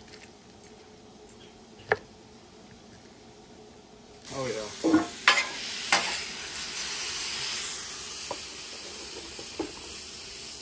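Food going onto a hot flat-top griddle about four seconds in, with a few metal clanks, then sizzling steadily and slowly fading. A single sharp knock about two seconds in.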